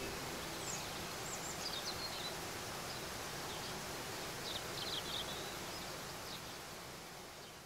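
Waterfall rushing steadily, with small birds giving two short runs of high chirps over it. The sound fades out near the end.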